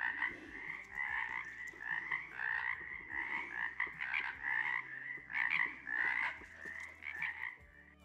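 Frogs calling: a steady string of short, repeated croaks, about two or three a second.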